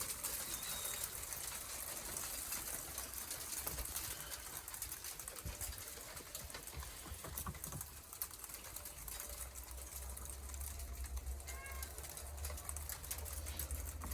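Hailstones pattering as a dense, irregular stream of small clicks, with a few short bird chirps about eleven seconds in.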